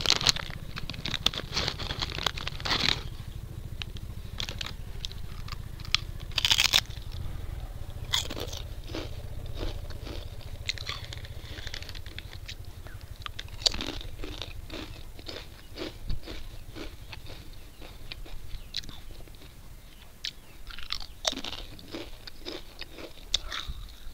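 A packet of Lay's potato chips crinkling at first, then the chips being bitten and chewed with repeated crunches.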